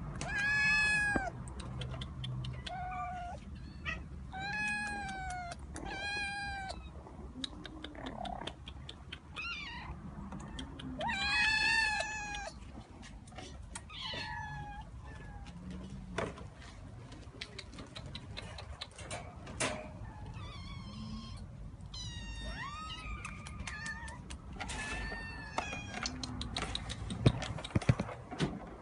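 A cat meowing repeatedly: several loud, drawn-out meows in the first dozen seconds, then fewer, fainter and shorter ones, with scattered faint clicks between them.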